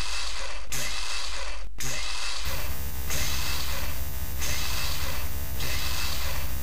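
Synthetic robot sound effect: a steady low electrical hum, joined about two and a half seconds in by a dense mechanical whirring and ratcheting that swells at regular intervals, with a few sharp clicks before it.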